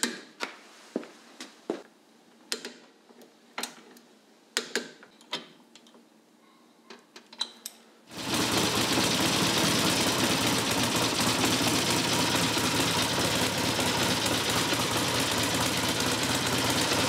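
A ratchet clicks and tools clink as the cylinder-head nuts of a Triumph Tiger 100 are re-torqued. About eight seconds in, the bike's 500 cc parallel-twin engine starts suddenly and runs steadily, with a slight exhaust blow that is traced to the Siamese header pipe not seating fully in its collar.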